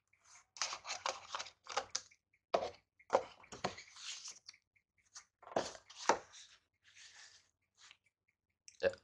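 Paper and plastic phone packaging rustling and crinkling as it is handled, broken by several sharp knocks of items being set down or tapped.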